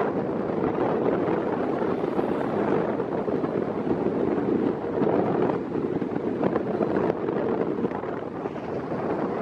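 Wind rushing and buffeting over the microphone in steady gusts, a dense rushing noise with no clear tones.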